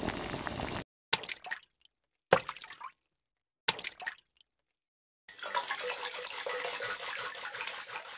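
Water: three short splashing surges a little over a second apart, each starting suddenly and dying away, with dead silence between them, then a steady rush of water from about five seconds in.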